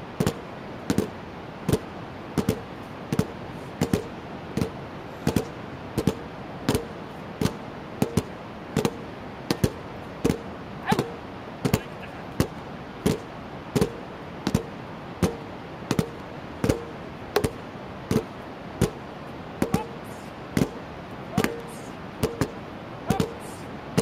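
Nunchaku drumming on two plastic bucket drums: a steady beat of sharp strikes, about three every two seconds, each with a short hollow ring, over a steady background hiss.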